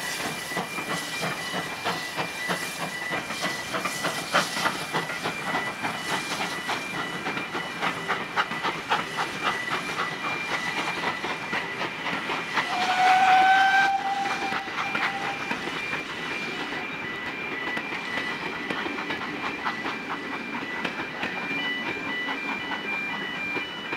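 Steam train passing and pulling away: a steady rumble with regular clicking of the carriage wheels over the rail joints, and the steam locomotive's whistle sounding once, held for about a second and a half, a little past halfway. A level-crossing alarm pulses in the background.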